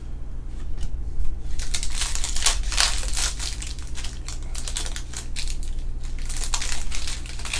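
Trading-card pack wrappers crinkling as cards are handled: a run of quick crackles, thickest about two to three seconds in and again near the end.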